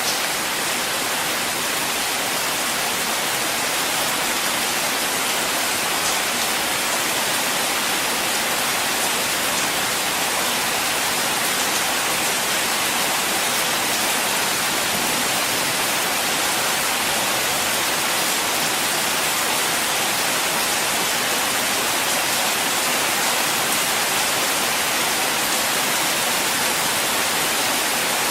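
Rain falling on a car, a steady, even hiss with no rumbles or single drops standing out.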